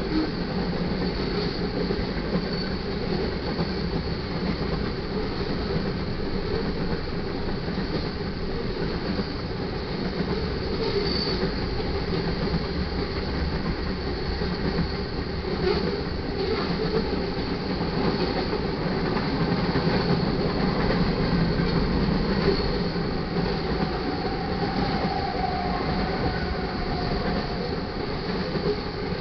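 Freight cars of a manifest train rolling past over the crossing: a steady rumble and rattle of steel wheels on the rails. A faint wheel squeal rises briefly near the end.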